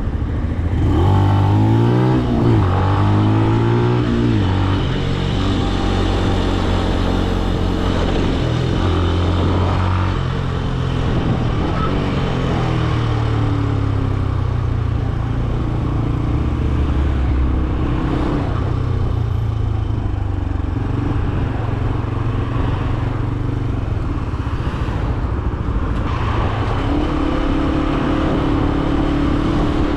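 Benelli BN125 motorcycle's single-cylinder engine accelerating, its pitch rising and dropping back twice in the first few seconds as it shifts up through the gears, then running at varying revs, easing off and pulling again.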